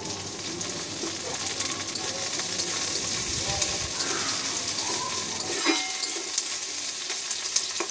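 Sliced onion and whole garlic cloves sizzling and crackling in hot mustard oil in a kadai as they are fried until brown, with the pieces being stirred in the pan.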